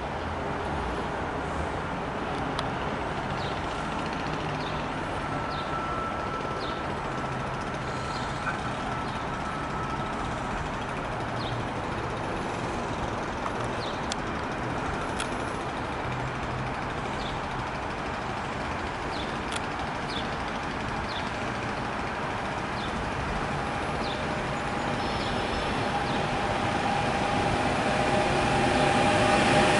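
Steady vehicle rumble with scattered short high chirps. From about three quarters of the way through, an approaching train grows steadily louder, with a rising hum.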